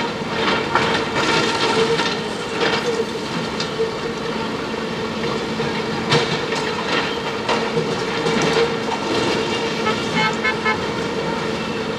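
JCB backhoe loaders' diesel engines running steadily under load while their buckets break up a concrete and glass wall, with irregular crashes and clatter of falling masonry.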